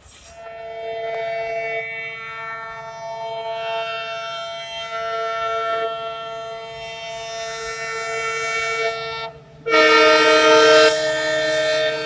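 Indian Railways locomotive horn sounded by an approaching train: one long blast of about nine seconds, a short break, then a louder blast near the end.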